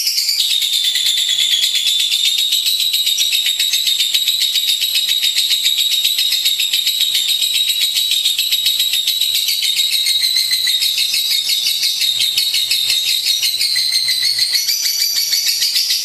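Lovebird in full song, a continuous fast, rattling, high-pitched chattering trill that runs on without a break.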